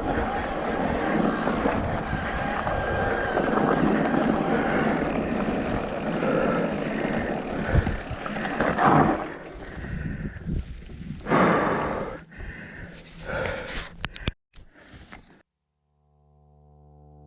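Trail-riding noise on a dirt path: a steady rush of wind and motion that breaks up into separate bumps and knocks after about ten seconds. The sound cuts to silence, and soft music starts near the end.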